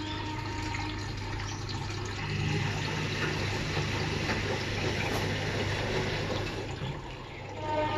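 Washing machine running a 60-degree hot-water cleaning cycle with cleaning powder: water rushing and sloshing in the drum over a steady low hum.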